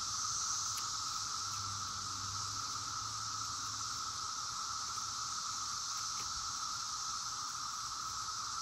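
Cicadas buzzing in a steady, unbroken chorus.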